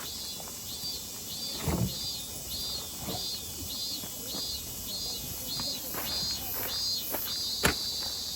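An insect calling in a steady pulsing rhythm, about two high-pitched pulses a second, with scattered soft knocks and one sharp click near the end.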